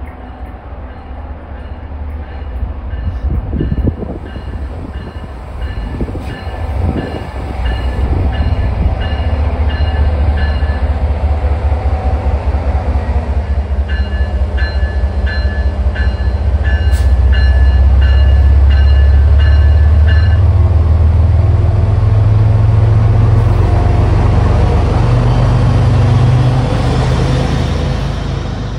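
MBTA commuter train led by an HSP46 diesel locomotive arriving: its bell rings steadily at about two strokes a second, with a break in the middle, and stops about two-thirds of the way through. The locomotive's deep engine and wheel rumble grows louder as it draws alongside and is at its loudest near the end.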